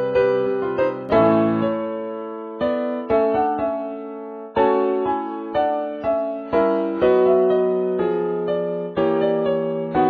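Soundtrack music on a piano-sounding keyboard: notes and chords struck one after another, each left to ring and fade.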